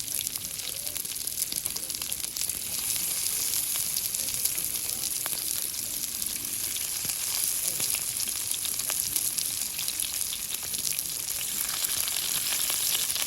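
Food frying in a hot pan: a steady, dense sizzle with fine crackling throughout.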